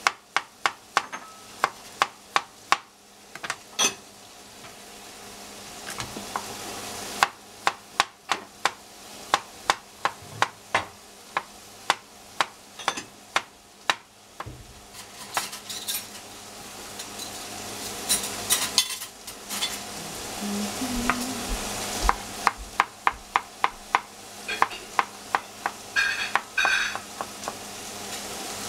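Knife chopping zucchini into julienne on a cutting board, in quick runs of sharp taps, over the steady sizzle of cabbage frying in oil in a pan. The sizzle slowly grows louder.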